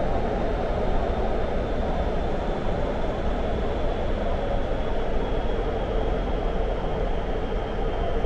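Steady rumble and rushing noise of a Guangzhou Metro Line 18 train running through its underground tunnel, with a faint high whine that slowly falls in pitch.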